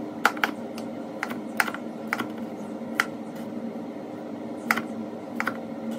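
Kitchen knife slicing a tomato and tapping down onto a plastic cutting board in irregular sharp clicks, over the steady hum of a running air fryer.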